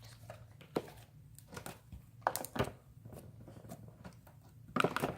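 Stretchy slime being stretched and squished by hand, with scattered sticky clicks and pops and a louder cluster of them near the end.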